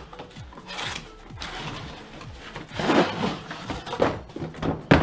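Cardboard box being handled on a workbench, with scraping and rustling as a hard plastic tool case is slid out of it, and two sharp knocks near the end. Background music plays underneath.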